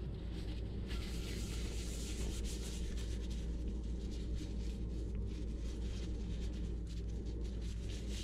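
Disposable plastic gloves rubbing and rustling as hands roll small pieces of brown sugar tapioca dough into pearls between the palms, a rough rubbing that starts about a second in.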